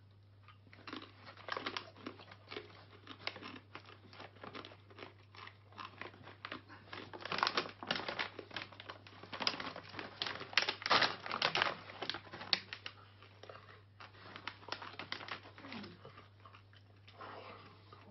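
Crunching and chewing of a crisp corn chip, mixed with irregular crinkling of the snack pouch as it is handled, the crackling densest and loudest in the middle.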